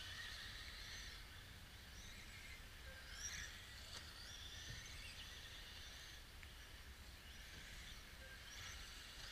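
Faint, high-pitched whine of several radio-controlled cars' electric motors racing around the track, each rising and falling in pitch with the throttle, over a low rumble of outdoor background noise.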